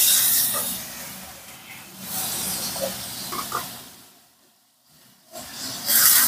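Tomatoes and ginger sizzling in oil in a hot frying pan as they are stirred; the sizzle comes in two loud spells and then dies down. Near the end, water poured into the hot pan hisses loudly.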